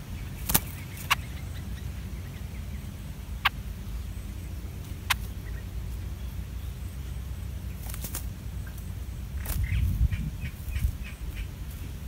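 Low steady rumble with a few sharp clicks scattered through it, then, near the end, a quick run of short high chirps from streak-eared bulbuls at the nest as the parents return.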